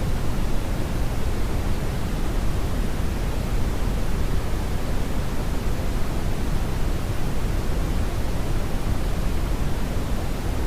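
Steady brownian (red) noise: an even, deep rushing hiss, heaviest in the bass, with no rhythm or change.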